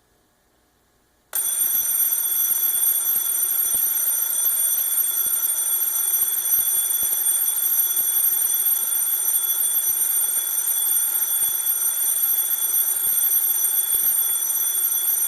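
Mickey Mouse & Friends Fireworks alarm clock's alarm going off: a loud, steady shrill tone over a hiss, starting suddenly about a second in.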